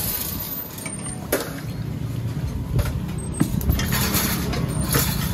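Busy outdoor stall background: a steady low rumble with scattered sharp clicks of handling, and a rustling, splashy stretch near the end as a gloved hand works in a steel bowl of liquid.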